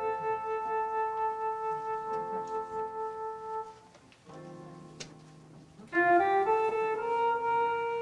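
Slow instrumental music on a keyboard instrument: long held chords with sustained, wind-like tones. It drops away briefly just before halfway, then comes back louder with a short run of rising notes about six seconds in.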